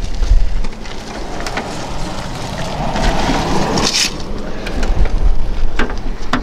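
Wind buffeting the microphone as a steady low rumble, with rustling handling noise that swells and ends in a short sharp rustle about four seconds in.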